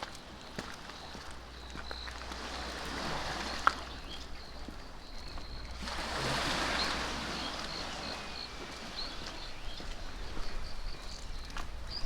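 Outdoor ambience: a steady hiss of wind or lapping water that swells about six seconds in, with a single sharp click a few seconds in and faint, repeated high chirps through the second half.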